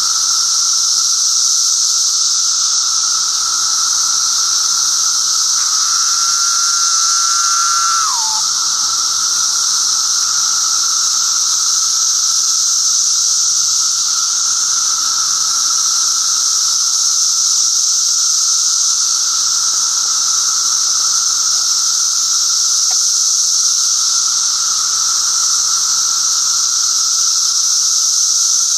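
Loud, steady chorus of periodical 17-year cicadas (Brood XIII) in the trees: a high shrill with a lower droning whine beneath it. About six seconds in, one louder call stands out for a couple of seconds and drops in pitch as it ends.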